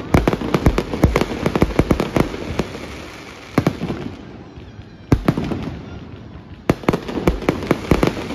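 Aerial fireworks bursting overhead: a quick volley of sharp bangs for the first two seconds or so, a single bang about three and a half seconds in and another about five seconds in, then a second rapid volley near the end.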